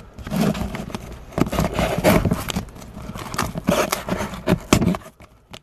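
Hands scraping and rustling against a cardboard shipping box, picking at its label and packing tape, in a run of uneven scrapes and knocks that dies down near the end.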